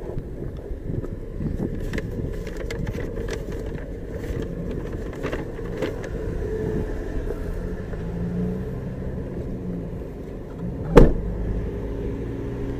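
A car engine running, with scattered small clicks and handling noises and one loud thump about eleven seconds in.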